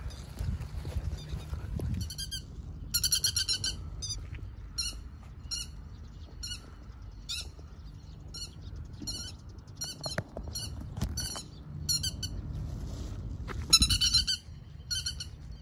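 Grey-headed lapwing giving repeated sharp, ringing alarm calls as it flies overhead. The calls begin a couple of seconds in and come about one or two a second, with a fast, loudest run near the end.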